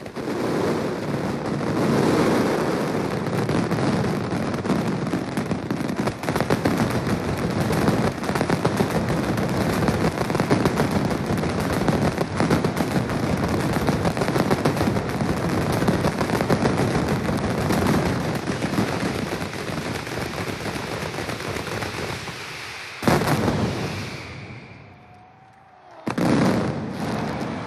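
Mascletà firecrackers (masclets) going off in a dense, unbroken roll of bangs, the ground-shaking terremoto finale of the display. About 23 seconds in it ends on one sharp loud bang, the rumble fades almost away, and a last short burst of bangs follows near the end.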